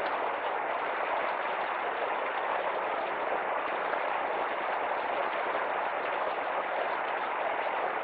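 Shallow river water rushing over rock ledges, a steady hiss.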